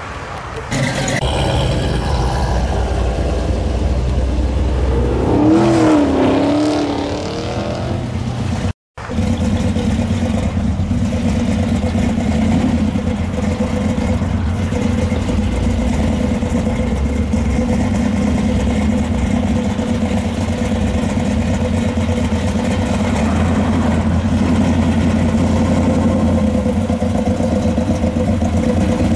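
A lifted pickup's engine rumbles, with a brief wavering tone about six seconds in. After a cut about nine seconds in, a Chevrolet Vega wagon's engine runs steadily at low speed as the car drives slowly past.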